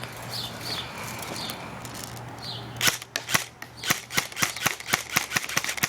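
Airsoft AK rifle firing a quick string of shots, starting about three seconds in. The shots come at roughly six a second, each a sharp crack.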